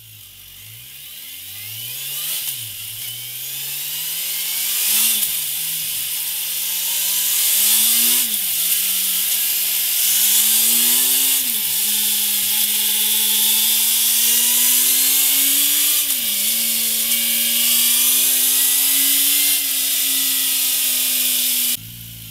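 Kawasaki Versys 1000's inline-four engine through its stock exhaust, accelerating hard up through the gears. The pitch climbs and drops sharply at each of about five upshifts, the sound getting louder as speed builds. Near the end it cuts off suddenly, and a second run starts again from low revs.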